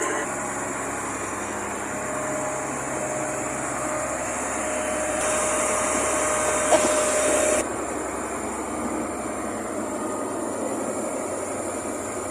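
The MV Arona's engine running steadily under way, a constant drone with a faint steady tone. A stretch of louder hiss comes in about five seconds in and cuts off suddenly after two or three seconds.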